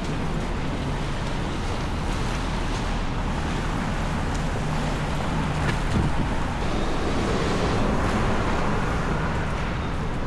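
Steady city street traffic noise: a continuous wash of passing cars, a little louder past the middle.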